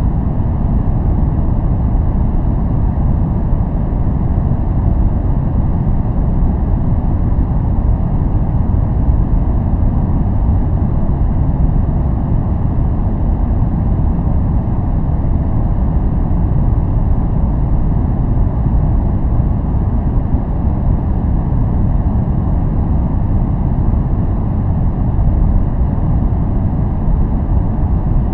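Steady, unchanging noise track for relaxing and focusing, billed as white noise but weighted to the low end: a deep, even noise with little hiss in the treble.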